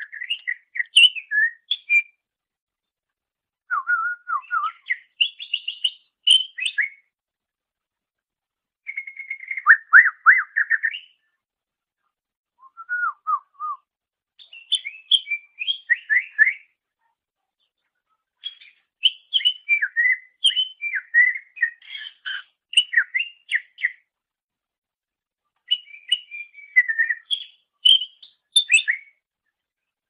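Cucak ijo (green leafbird) singing: quick, varied whistled phrases and chirps, given in bursts of a few seconds with short pauses between them.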